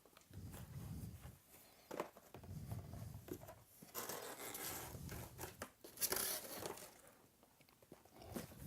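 Cardboard and plastic packaging handled and torn open: irregular rustling and crinkling with scattered clicks and soft knocks, and two louder crinkling bursts about four and six seconds in.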